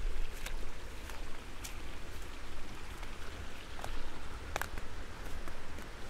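Footsteps along a grassy path of stone slabs, heard as scattered sharp ticks over a steady low rumble and hiss.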